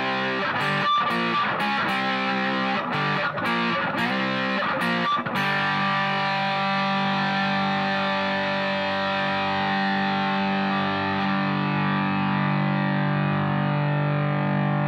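Electric guitar (a Stratocaster) played through a JOYO Super Lead amp at full distortion: choppy, rhythmically picked chords for about five seconds, then one chord left to ring and sustain.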